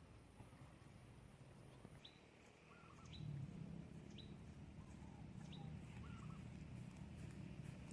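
Faint, short, high bird chirps, a few of them about a second apart, with a low rumble underneath from about three seconds in.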